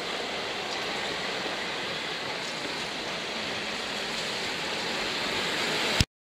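Steady road-traffic noise, mostly tyre hiss, as cars and vans move off over a reopened level crossing. It grows a little louder near the end as a van comes close, then a click and the sound cuts off.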